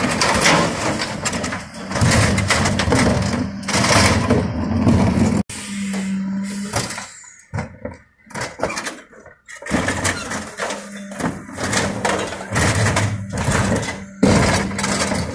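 Refuse truck's engine and hydraulics humming steadily while its rear Geesinknorba Combi-split bin lifters raise and tip wheelie bins into the Geesinknorba GPM IV body, with plastic bins and steel lifter clattering. The noise dies down for a couple of seconds in the middle, then picks up again.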